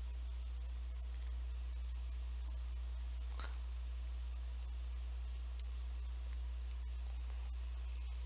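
Steady low hum with faint scratching and light ticks of a stylus on a drawing tablet, and one brief louder rustle about three and a half seconds in.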